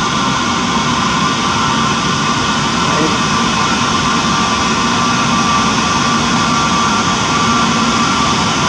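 Airbus A320neo's Pratt & Whitney PW1100G geared turbofan engines running at taxi idle as the airliner rolls slowly onto its stand: a loud, steady rush with several steady whining tones.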